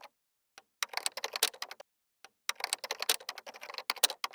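Rapid clicking of keyboard typing, in two bursts of quick key strikes with dead silence between.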